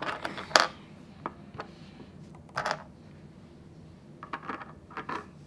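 Small Lego builds being set down one by one on a plastic turntable: a scattered series of light clicks and taps of plastic on plastic, the sharpest about half a second in.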